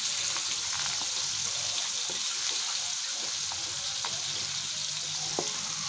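Flour-dusted eel pieces sizzling steadily in hot oil in a wok, stirred with a wooden spatula, with a few small clicks.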